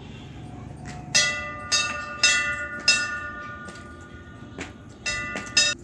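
A temple bell struck repeatedly: four strikes about half a second apart, then two more near the end. Each strike leaves a ringing metallic tone that carries on between strikes.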